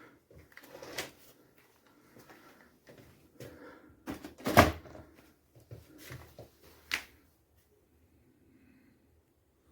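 Handling noises from a cordless stick vacuum and its plastic parts: scattered clicks and knocks, the loudest about halfway through, with light rustling between them.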